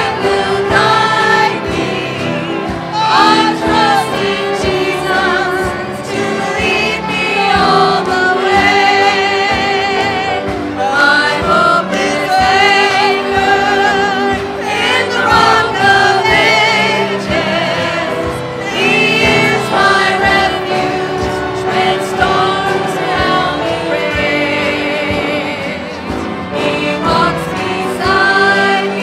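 Gospel music with singing voices throughout, the held sung notes wavering with vibrato.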